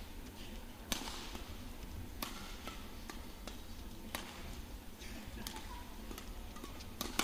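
Badminton rackets striking the shuttlecock in a fast doubles rally: sharp, crisp hits about once a second, over a low hum of arena noise.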